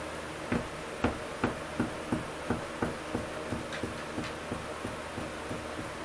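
Hammer tapping on wood bracing: a run of about fifteen sharp strikes at roughly three a second, growing fainter toward the end.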